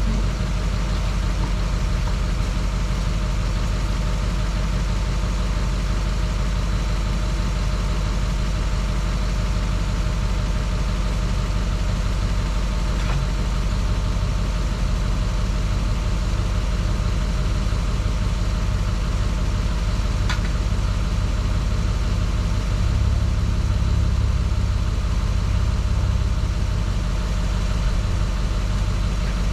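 An engine idling steadily, with a couple of faint clicks partway through.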